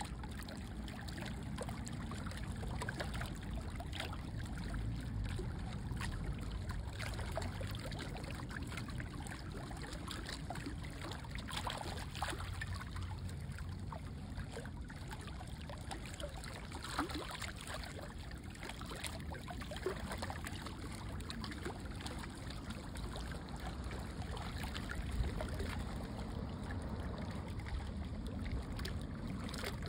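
Water lapping and trickling, with many small splashes over a steady low rumble.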